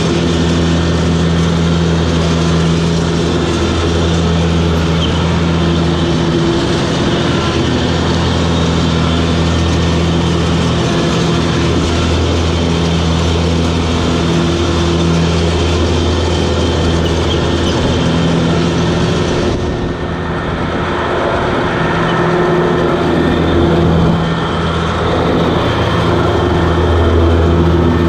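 Toro Groundsmaster 7210 zero-turn ride-on mower running steadily, its engine and rotary cutting deck making a constant hum with a wide hiss on top. About two-thirds of the way through the hiss drops away and the sound turns duller for a few seconds.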